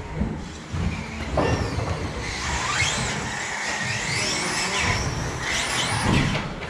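RC race cars' motors whining, pitch sliding up and down again and again as the cars speed up and slow down around the track, over a low rumble.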